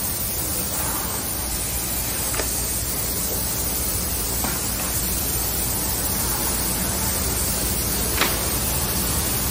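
Woodworking machinery running on the factory floor, a steady loud rushing noise, with a few light clicks.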